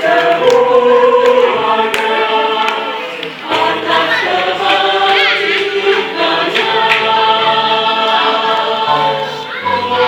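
Church choir singing a hymn in several voice parts, holding long sustained notes, with a brief breath between phrases about three seconds in.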